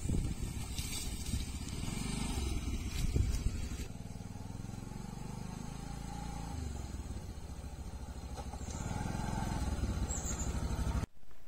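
Small motorcycle engine running as the bike rides slowly over grassy ground, getting louder as it comes closer near the end, then cutting off abruptly.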